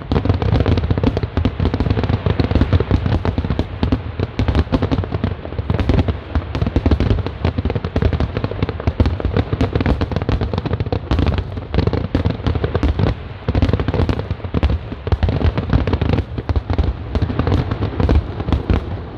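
Fireworks finale barrage: a dense, continuous volley of shell bursts and crackling with a deep rumbling boom, the bangs coming many times a second and tailing off right at the end.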